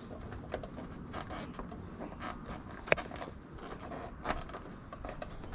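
Light scraping and scattered small clicks of hands working at a car aerial, trying to undo it from its mount, with one sharp click about three seconds in.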